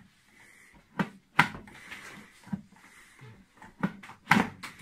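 Plastic basket drawer of a Silvercrest digital air fryer being slid back into the unit: a few separate knocks and clicks, with the loudest cluster near the end as it shuts.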